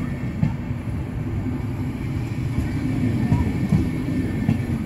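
Passenger coaches of a train rolling past: a steady low rumble of wheels on rails, with a few short knocks.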